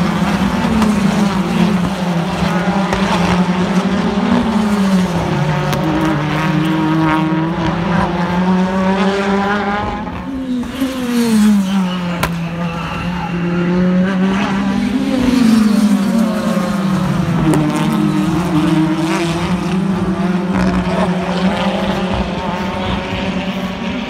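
BTCC touring cars racing, their 2.0-litre turbocharged four-cylinder engines repeatedly climbing in pitch and dropping at each gear change, several cars overlapping.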